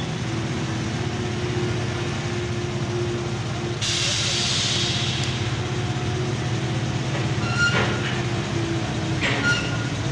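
Floating bulldozer dredger's engine running with a steady deep drone. A burst of hiss comes about four seconds in, and two short squeaks come near the end.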